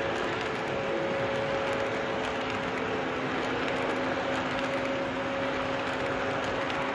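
Model passenger train rolling past on curved track: a steady rumble of wheels on the rails with a faint, even hum underneath.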